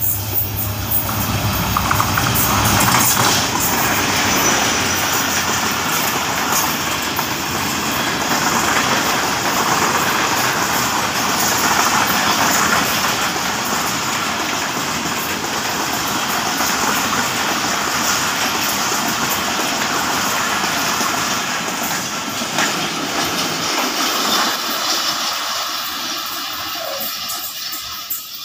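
Karakoram Express passenger train passing at high speed behind an HGMU-30 diesel-electric locomotive. The locomotive's engine is heard first, then the steady rush and clatter of the coaches' wheels on the rails, easing off in the last few seconds.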